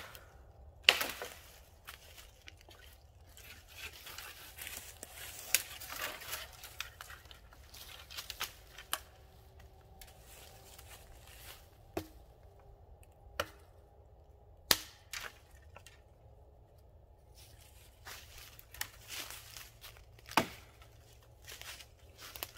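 Dry dead wood snapping in sharp cracks, about seven clear ones spread out, between stretches of twigs and dry leaves rustling and crunching as a long branch is pulled and broken by hand.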